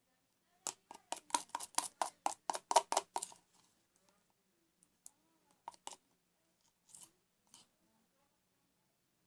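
A spoon clicking against the container as it stirs thickening slime of white glue and dissolved powdered soap: a quick run of about a dozen clicks, roughly four a second, then a few scattered clicks.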